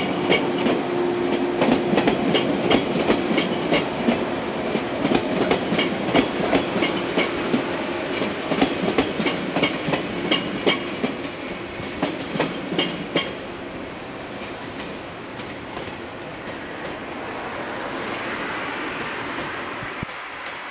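Yellow JR West electric multiple unit running away, its wheels clacking over rail joints and points with a steady hum under them for the first several seconds. The clacks stop about two-thirds of the way through and the rumble fades as the train recedes.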